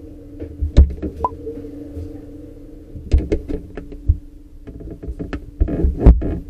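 Irregular clicks and knocks of a cabinet door lock and its parts being handled and fitted, coming in short clusters, over a steady background hum.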